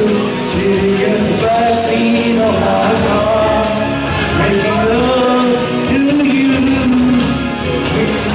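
A man singing a melody into a handheld microphone over loud backing music with a steady drum and cymbal beat.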